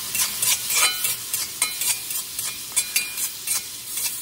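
Potatoes and peppers sizzling in a hot wok as a metal spatula stirs and tosses them: a steady sizzle with sharp scrapes and clinks of metal on the wok about every half second, some ringing briefly. The soy sauce and Shaoxing wine are cooking down and caramelizing on the potatoes.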